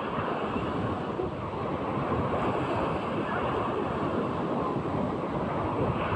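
Sea surf with big waves breaking and washing, a steady rushing noise, with wind buffeting the microphone.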